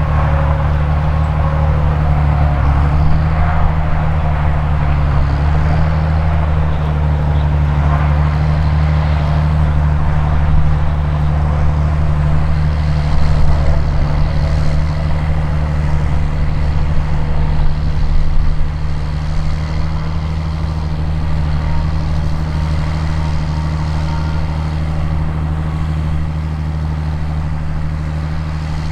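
Diesel engine of a large John Deere farm machine running steadily, a continuous low hum.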